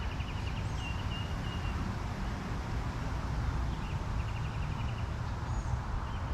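Small birds calling: a fast trill of rapidly repeated notes at the start and again about four seconds in, with short whistled calls between, over a steady low rumble.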